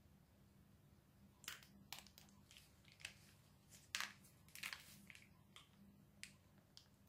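A soft plastic mayonnaise pouch crinkling and crackling in the hands as it is squeezed. The quiet crackles come in an irregular scatter, starting about a second and a half in, over a low steady hum.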